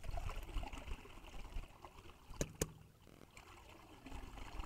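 Faint water trickling and sloshing as a soaked pipe is hauled out of a pond, with two sharp clicks about two and a half seconds in.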